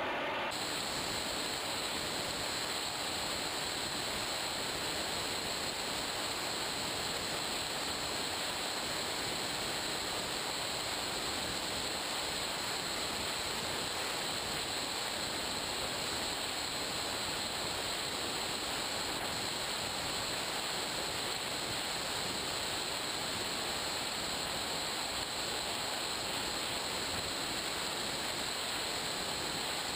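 Steady rush of air and motor noise picked up by a GoPro mounted on a model plane in flight, with a constant high whine running through it.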